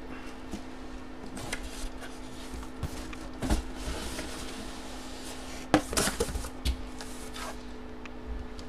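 Cardboard boxes being handled on a table: scattered rubbing and knocks, with the sharpest knock about six seconds in. A steady low hum runs underneath.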